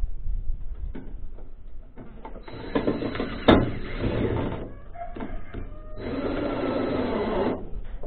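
Cordless drill driving screws into corrugated steel sheet: the motor runs in two bursts of about two seconds each with a steady high whine, and there is a sharp click about a second into the first.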